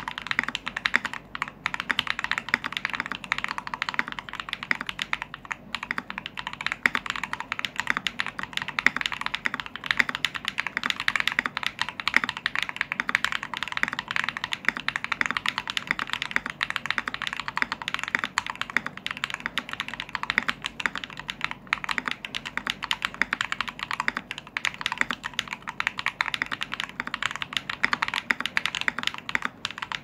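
Fast, continuous typing on a mechanical keyboard with lubed KTT Strawberry linear switches, in a stacked acrylic case with a top-mounted Gravoply plate, a three-layer tape mod and no foam. Many keystrokes a second run together into a dense, even stream of clicks.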